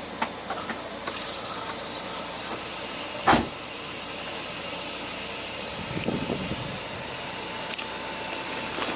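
Clicks and a brief hiss, a loud knock about three seconds in, and a faint steady whine: the turbo Honda S2000's electric fuel pump running with the ignition on and the engine not started, pressurising the fuel rail to check the new injector seals for leaks.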